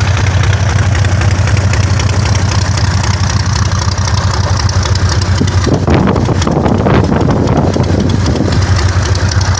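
Volkswagen-based light-aircraft engine idling steadily, running smoothly, with a louder rush of noise for about a second and a half around six seconds in.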